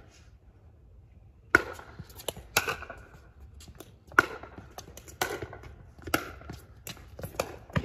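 Pickleball rally: paddles striking the plastic ball back and forth, sharp hits roughly once a second starting about a second and a half in, with fainter taps between.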